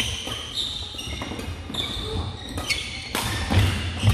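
Badminton rally on a wooden gym floor: sharp racket strikes on the shuttlecock, several short sneaker squeaks, and low thuds of footfalls, echoing in the hall.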